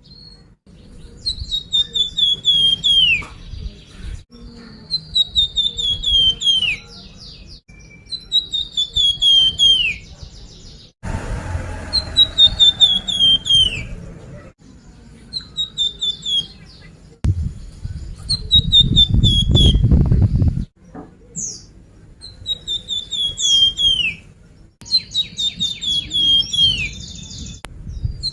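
Recorded song of a flamboyan bird played as a lure (pancingan): the same phrase repeats about every three and a half seconds, a quick run of high notes stepping down in pitch and ending in a downward slide. A low rumble sits underneath and swells twice, around the middle and about two-thirds through.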